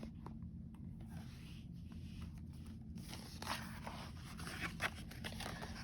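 Faint rustling and scraping, with a few small clicks, from a paper picture book being handled.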